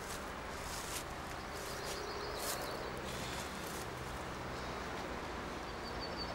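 Quiet outdoor ambience: a steady background hiss with faint high bird chirps about two seconds in and again near the end.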